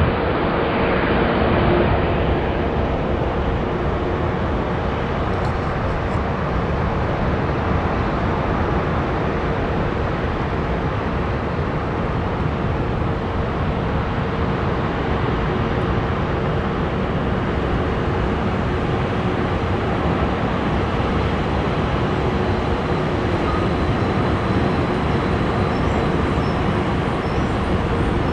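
Steady engine roar with a low steady hum underneath, a little louder in the first two seconds.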